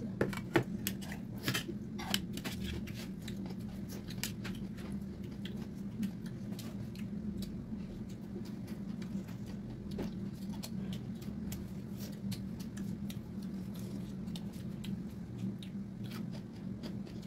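Close eating sounds: chewing and lip smacks as pork, rice and cucumber kimchi are eaten by hand, with small clicks of fingers and a spoon on steel plates. Sharp smacks and clicks come every second or so over a steady low hum.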